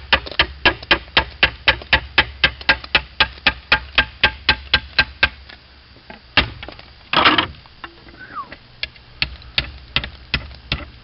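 Slater's hammer tapping on a roofing slate in a fast, even run of sharp knocks, about five a second, as the slate is chipped down to a cut line over the edge of another slate. The tapping stops for a moment, with one knock and a brief louder rasp in the middle, then starts again at the same pace.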